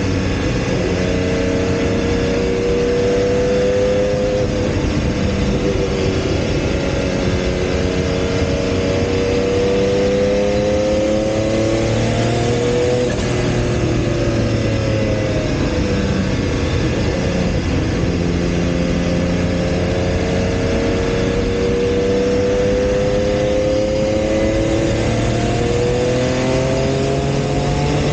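Porsche 956 Group C race car's twin-turbocharged flat-six at racing speed, heard from inside the cockpit. The engine note climbs steadily under load, drops about halfway through, dips again a few seconds later, then climbs once more and rises sharply near the end.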